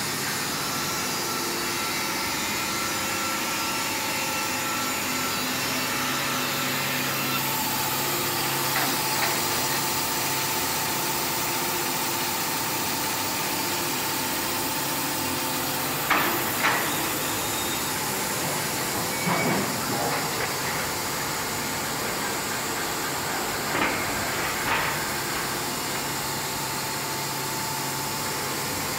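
Wood-Mizer WM3500 industrial sawmill running steadily, a machine hum and hiss. A few sharp knocks come past the middle and near the end.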